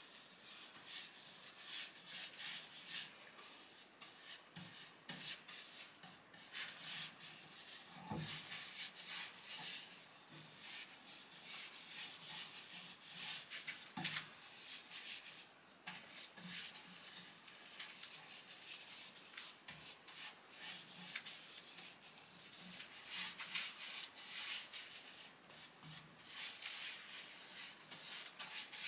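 Paintbrush bristles swishing back and forth over bare softwood boards, spreading a liquid wood finish in many short strokes. There are a couple of soft knocks partway through.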